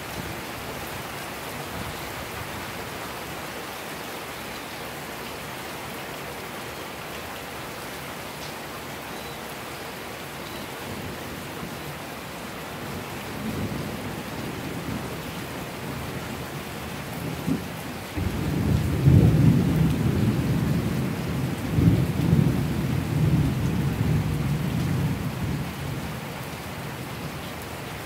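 Steady rain falling, with a long rumble of thunder that builds about halfway through, swells to its loudest in the second half and dies away near the end.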